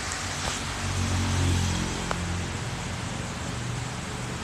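A motor vehicle engine running low and steady under a constant hiss, its hum swelling a little about a second in.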